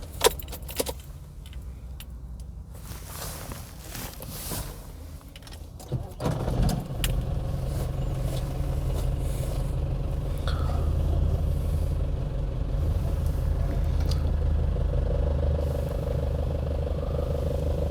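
Nissan Frontier pickup: a few knocks and clicks, then about six seconds in the engine note comes up and runs steadily as the truck is driven off. No clutch rattle is heard; the new clutch disc has cured the noise.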